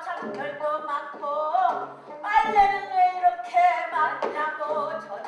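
Korean folk-style singing, a high voice sliding and bending between held notes, over instrumental accompaniment.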